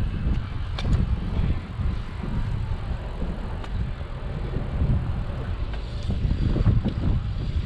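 Wind buffeting the microphone of a chest-mounted GoPro on a moving bicycle, a low, uneven rush over the hiss of tyres on a concrete path, with a couple of faint clicks.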